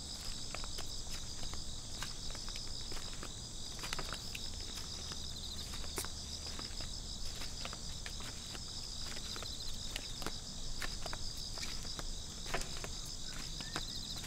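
A steady chorus of insects chirring in a high, finely pulsing band, with the scattered footsteps of two people walking slowly on paving.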